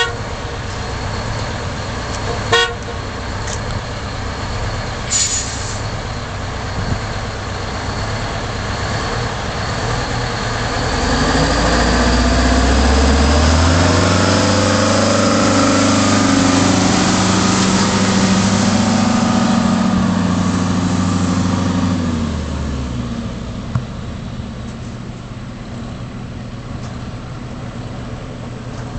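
The Detroit Diesel 8V71, a two-stroke V8 with a vertical exhaust, in a 1978 American LaFrance tiller ladder truck, running as the truck drives past: it grows louder, is loudest about halfway through for several seconds, then fades as the truck pulls away. A sharp click comes a couple of seconds in, and a brief hiss a few seconds later.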